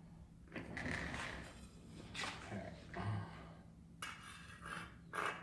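Welding rod scratching and clinking against rusty steel angle iron in several short, irregular bursts, a scratch start trying to strike an arc through the rust.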